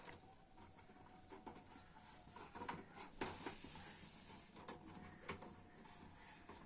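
Faint, scattered clicks and light taps of handling over quiet room noise.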